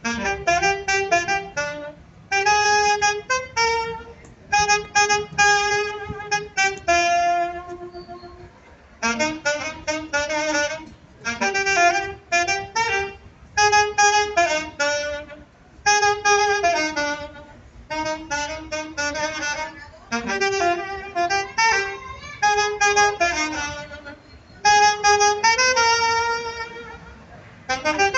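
Saxophone played live, a lively melody in phrases of a second or two with short breaks between them.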